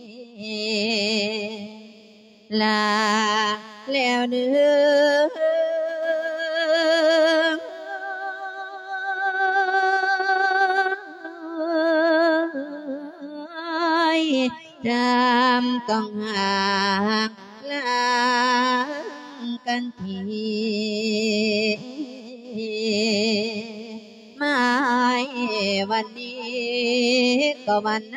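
A Thai monk singing a sermon in verse (thet klon) addressed to the spirit of a dead father: a long, ornamented melodic line of held notes with strong vibrato, broken by short breaths.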